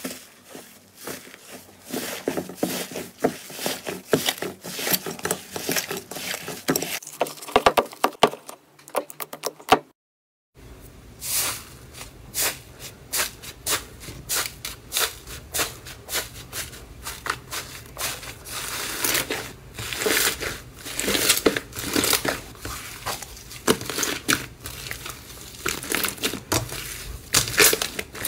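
Hands pressing and squeezing airy slime, giving dense, irregular crackling and popping as the trapped air bursts. After a short break about ten seconds in, a second slime is kneaded in a metal tray and crackles and pops the same way.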